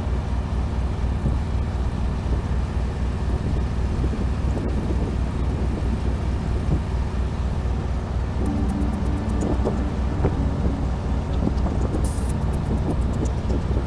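A sailing yacht's inboard engine running steadily as the boat motors along, a loud, even low throb.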